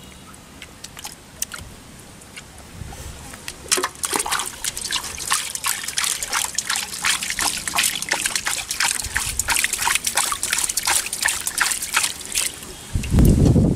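Shallow muddy water being splashed and sloshed, with trickles and drips: quieter at first, then many quick small splashes through the middle. A loud low rumble comes in near the end.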